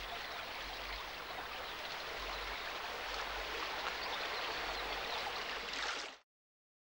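Shallow stream running over rocks: a steady noise of flowing water that cuts off suddenly about six seconds in.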